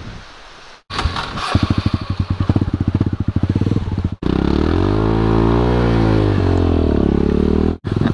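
Motorcycle engine running on a rough track, first a fast chugging pulse, then a steadier drone whose pitch sinks and rises again as the throttle changes; the sound cuts off abruptly three times.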